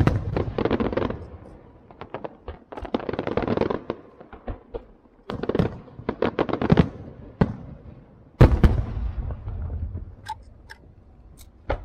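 Aerial firework shells bursting in a rapid series of bangs and crackles, starting suddenly, with the loudest bang about two-thirds of the way through and scattered pops near the end.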